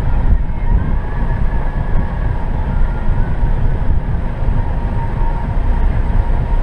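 Steady low rumble of a car driving along a snow-covered road: engine and tyre noise, with a faint steady whine on top.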